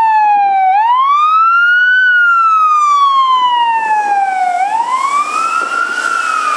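Fire engine siren wailing: its pitch slides slowly down, then sweeps quickly back up, about once every four seconds. Near the end a rushing hiss joins it as the truck passes on the wet street.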